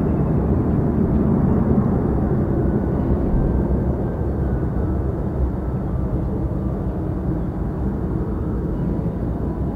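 Jet noise from a Boeing 737-800's two CFM56-7B turbofan engines as the airliner climbs away after takeoff: a steady low rumble that slowly fades and dulls as the aircraft recedes.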